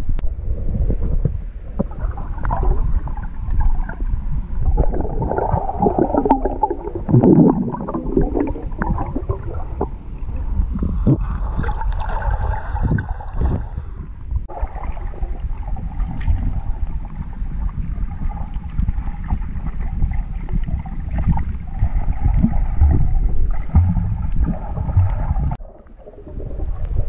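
Underwater sound picked up by a GoPro in its waterproof housing: a muffled low rumble of water moving around the housing, with gurgling and bubbling as the swimmer moves. The sound drops away briefly near the end.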